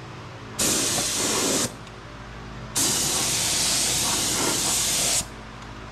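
Gravity-feed paint spray gun hissing in two trigger pulls: a short burst of about a second, then a longer pass of about two and a half seconds, each cutting off sharply when the trigger is released.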